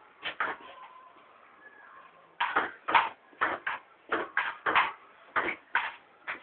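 Table tennis rally: a ping-pong ball clicking back and forth off paddles and the tabletop. There are a couple of sharp knocks at the start, then from about two seconds in a quick, uneven run of about a dozen knocks.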